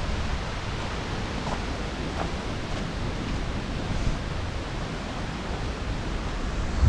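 Steady rush of water from Minnehaha Falls, a waterfall plunging some sixty-odd feet.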